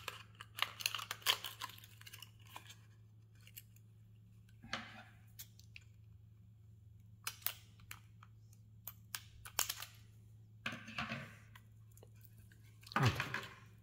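Scissors snipping through a small plastic-and-card lure package, with scattered sharp clicks and crinkling of the plastic as a small lure is freed from it. A faint steady low hum sits underneath.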